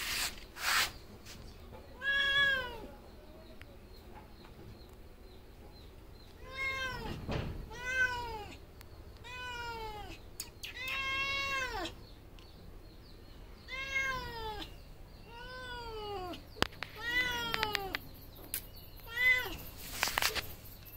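Calico cat meowing repeatedly, about nine separate meows, each rising then falling in pitch. Short noisy bursts come at the very start and near the end.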